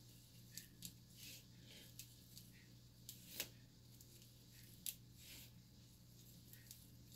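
Faint, crisp rustling and scratching of synthetic braiding hair worked between fingers with long nails, with two sharper clicks about halfway through, over a steady low hum.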